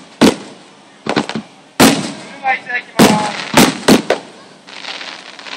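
Aerial firework shells bursting in a rapid irregular series of sharp bangs, each trailing off in an echo. A spectator's voice is heard briefly between bursts near the middle.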